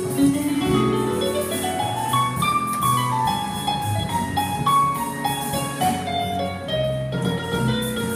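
Jazz big band playing live, with keyboard and drum kit under the horns; a run of notes climbs steadily over the first three seconds.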